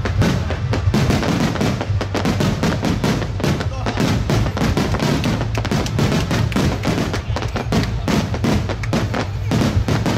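Fireworks barrage: many shells bursting in quick succession, a dense run of bangs and crackles with no break.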